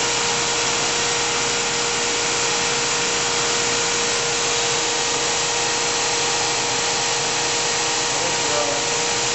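GMP SG-1000/400 hydraulic surface grinder running: a steady machine whir with a constant tone, from the spindle drive and hydraulic pump, with no change through the stretch.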